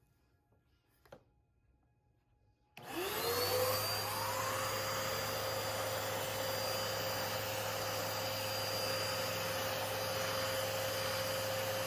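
Hoover WindTunnel XL Pet upright vacuum cleaner switched on about three seconds in: its motor spins up with a quick rising whine, then runs steadily with a constant whine over a loud rushing of air.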